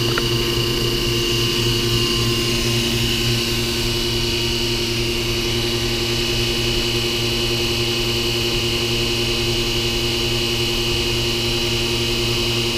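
Dropmaster DM12 sprinkler-draining vacuum pump running steadily, a constant hum with a high whine above it, as it pulls vacuum on the sprinkler pipe.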